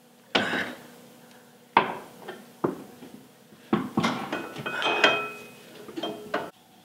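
A series of irregular metal clanks and knocks, a few with a brief metallic ring, as a steel bar is worked against a Jeep Cherokee's rear axle and suspension to lever the axle down for the new leaf spring.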